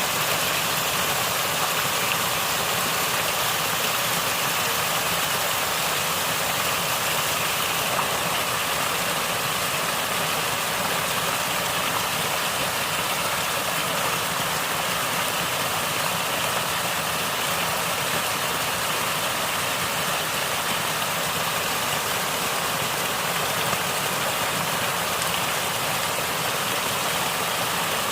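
Natural water flowing and gurgling, a steady even wash of sound with no breaks.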